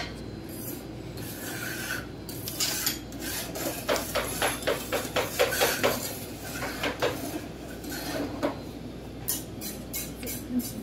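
Metal spatulas scraping across the frozen steel cold plate of a rolled-ice-cream (stir-fried ice cream) machine. The strokes come as a quick run of rasping scrapes, about four a second, busiest in the middle.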